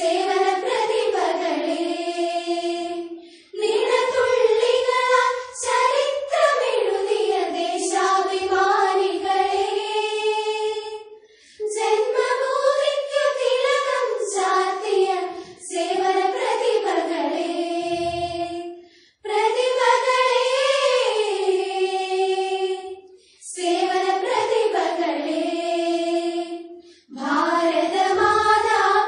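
A group of schoolgirls singing a patriotic song in unison, unaccompanied. The melody goes in phrases of a few seconds with short breaths between them.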